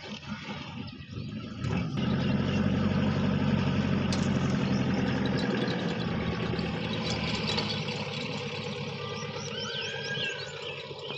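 Vehicle engine idling steadily, louder from about two seconds in.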